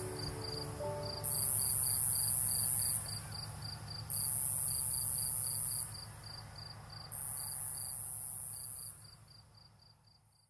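Summer-night insect chorus: a high-pitched insect buzz lasting about two seconds comes three times at even spacing, over steady cricket chirping at about four chirps a second. The last notes of music die away about a second in, and the chorus fades out at the end.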